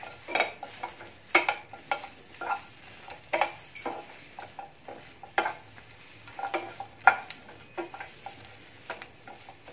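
Wooden spatula stirring roasted green chillies and garlic cloves in a non-stick frying pan: irregular scraping knocks against the pan over a light sizzle.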